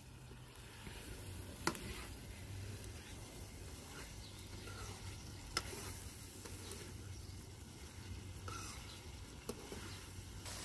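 Potatoes and cauliflower sizzling in a wok-shaped pan over a wood fire while a spatula stirs them, with a few short sharp clicks along the way.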